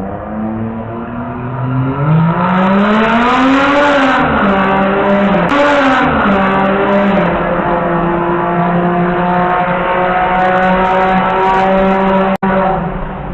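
Toyota Cressida's 2JZ straight-six engine pulling hard, its pitch climbing, then dropping sharply as it shifts about four seconds in. It climbs briefly again, then holds a steady loud drone. The sound cuts out for an instant near the end.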